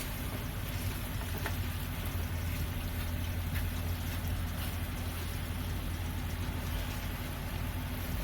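Steady low hum of an idling semi-truck engine heard inside the cab, with a few faint clicks.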